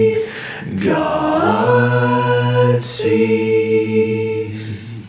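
One man's voice multi-tracked into stacked close-harmony backing vocals, sung a cappella with no instruments. Long held chords with brief breaks between them, and the voices slide to a new chord about a second in.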